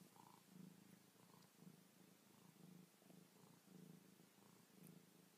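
Domestic cat purring softly, a low rumble that swells and fades in a steady rhythm with each breath in and out.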